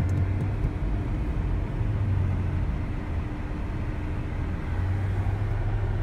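Mercedes-Benz E-Class heard from inside its cabin, the engine and tyres giving a steady low rumble and hum as it rolls slowly along.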